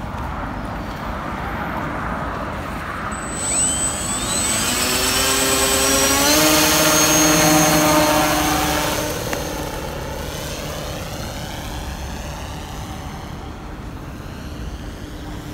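Electric motor and propeller of a homemade RC plane (a KV1400 brushless motor) whining as it is throttled up, the pitch rising for a few seconds. It holds steady and loudest through the hand launch, then fades and wavers as the plane flies away.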